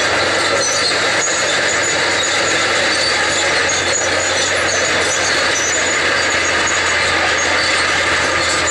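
Caterpillar D6 crawler dozer working a road: its diesel engine runs steadily under load, with short high squeaks from the steel tracks scattered through.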